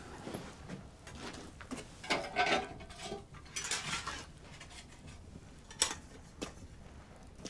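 Objects being handled: two short rustling, scraping passages, then two sharp clicks or knocks.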